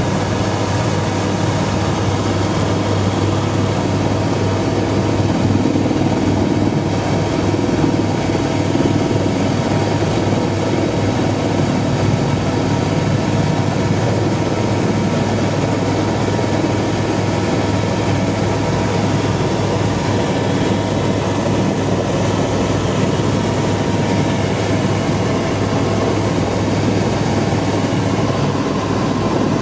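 Helicopter cabin noise in flight: the rotor and engine make a loud, steady drone with a strong low hum.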